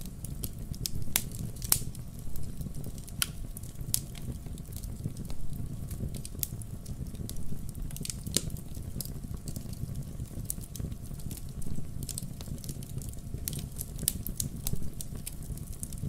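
Wood fire crackling in a fireplace: a steady low rumble of burning with sharp pops and snaps at irregular intervals.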